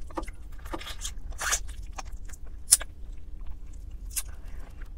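Close-up eating sounds of a person biting and chewing roasted chicken pulled off the bone: irregular wet crunches and clicks, the sharpest about two and a half seconds in, over a steady low hum.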